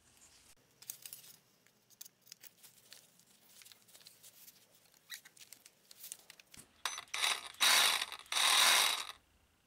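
Faint clicks and knocks as a blade is fitted into a Milwaukee Hackzall cordless reciprocating saw, then the saw is triggered three times in short runs near the end, with its blade moving freely; these runs are the loudest sound.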